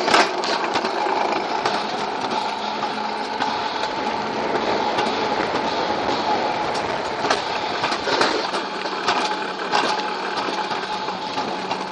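Alpine coaster sled running fast down its steel rail track: the wheels rolling on the rails in a steady rattling rumble with a faint hum and a few sharp knocks.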